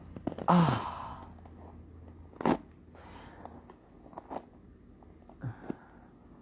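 Hairbrush being dragged through long hair in strokes, scratchy bristle rustles, with a short falling vocal grunt about half a second in, a sharp knock about two and a half seconds in and lighter clicks after it.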